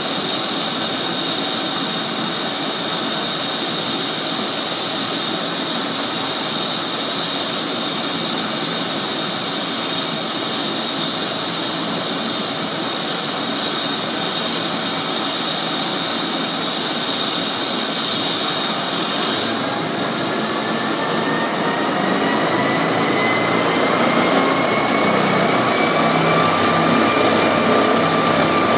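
Medical helicopter's turbine engines running on the pad with rotors turning: a steady high turbine whine over a broad rushing noise. About twenty seconds in, the whine rises in pitch and grows louder as the engines spool up for liftoff.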